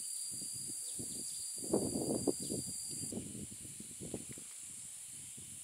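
Steady high-pitched insect chorus, with a thin steady whine in it that stops about three seconds in. Over it comes irregular close rustling and crackling, busiest around two seconds in.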